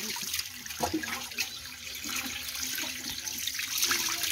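Tap water pouring and splashing onto a raw whole chicken as hands rub it clean in a stone sink.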